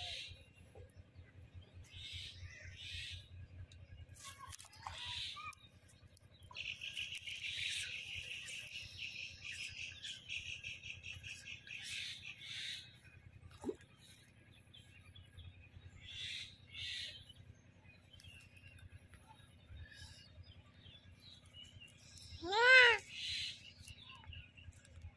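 Birds chirping, with several seconds of rapid chattering calls in the first half and a single loud, pitched call near the end.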